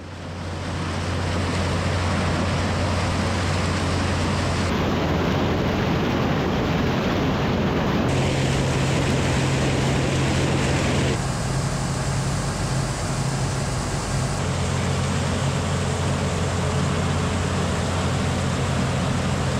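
Farm machinery engines running with a steady low drone under a loud rushing noise; the sound changes abruptly about every three to four seconds.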